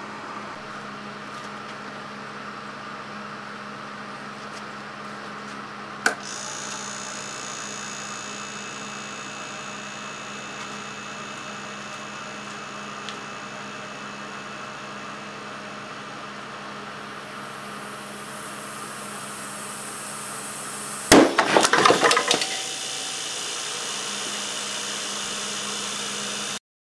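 Hermetic refrigeration compressor running steadily with a hum as it pumps air into a hard plastic bottle. About 21 s in, the bottle bursts under the pressure, at around 110 psi, with a single loud bang. About a second of clattering follows.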